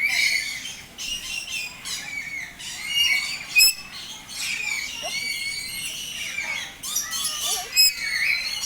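A flock of birds chirping and squawking, many short high calls overlapping, with two sharper, louder calls about three and a half seconds in and near the end.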